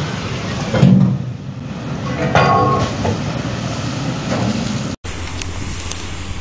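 Steel hull of a cargo ship grinding and scraping against a concrete quay, with heavy crunches about a second in and again past two seconds. After a sudden cut near the end, steady wind and surf noise.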